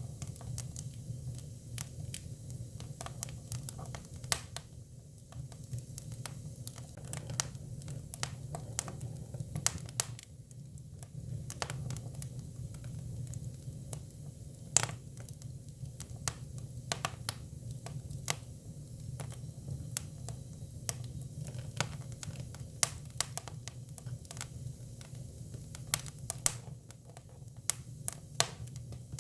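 Hinoki (Japanese cypress) firewood burning: irregular sharp crackles and pops, a few much louder than the rest, over a steady low hum.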